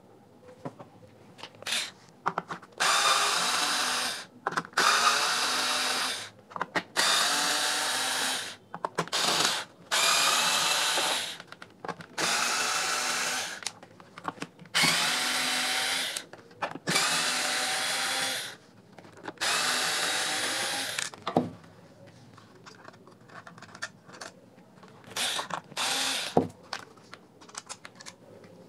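Small cordless electric screwdriver backing out screws, in about eight separate runs of a second and a half each with a high motor whine. Near the end come a few short bursts and clicks of plastic and screws being handled.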